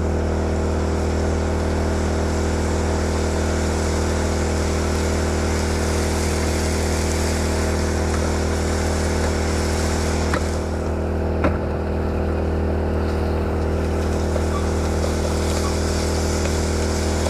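Generator engine running steadily with an even hum. Two faint knocks come a little past the middle.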